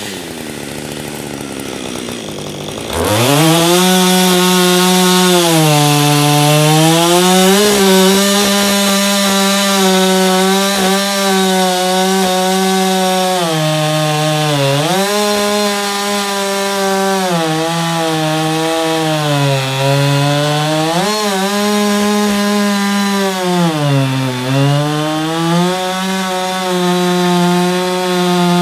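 Husqvarna 560 XP 60 cc two-stroke chainsaw running quietly for about three seconds, then opened to full throttle and cutting through a large beech trunk. The high engine note sags in pitch several times as the chain bites into the wood and picks back up each time.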